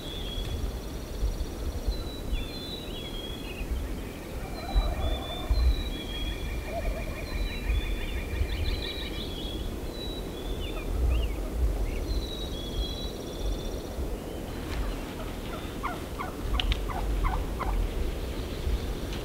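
Wild turkeys calling from their roost, with a run of rapid gobbling notes about 15 seconds in, among many short, high songbird chirps and a trill. Wind rumbles on the microphone.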